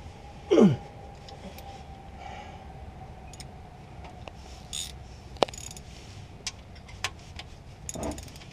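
Faint scattered metallic clicks and clinks from a socket ratchet being handled at an oil drain plug under the car. A short voiced sound falling in pitch comes about half a second in.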